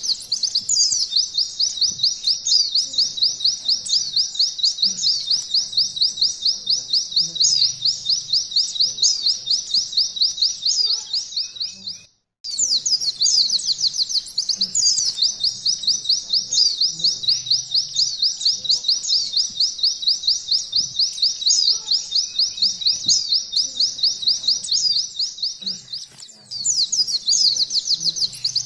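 White-eye (pleci) singing a long, unbroken canary-style "nembak" trill of rapid, high sweeping notes. It breaks off for a split second about twelve seconds in, then carries on.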